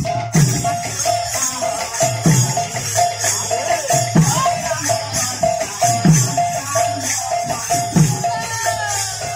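Live kirtan ensemble music. A hand drum strikes a deep stroke that falls in pitch about every two seconds, jingling cymbals or tambourine rattle throughout, and a short mid-pitched note repeats about twice a second.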